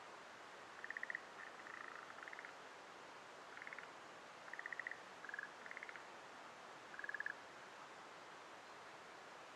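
Frogs calling: short rattling croaks, about eight of them at slightly different pitches over the first seven seconds, then only a faint steady hiss.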